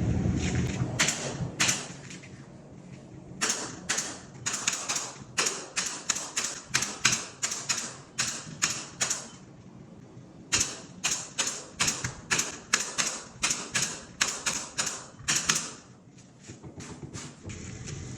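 A stapler firing staples one after another to fasten drywall corner bead to the wall corner: a run of sharp clacks, two to three a second, with short pauses about ten seconds in and near the end.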